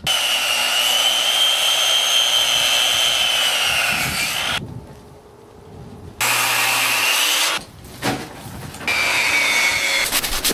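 Handheld power saw cutting across a thick milled timber beam in three runs, its motor whine sagging a little as the blade loads in the wood, with pauses between runs. Near the end, a few handsaw strokes start finishing the cut.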